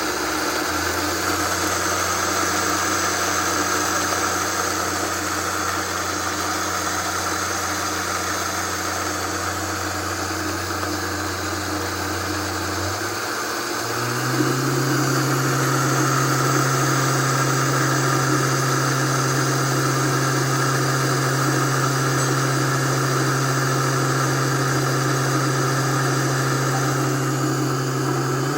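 Vitamix blender motor grinding whole coffee beans, a steady hum over the rattle and hiss of the beans. About halfway through, the motor steps up to a higher speed and holds it.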